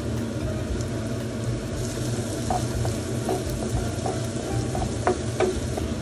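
Halved cherry tomatoes sizzling in oil with chopped onion in a frying pan, over a steady low hum. From about two and a half seconds in come light knocks of a wooden spoon stirring against the pan, the two strongest near the end.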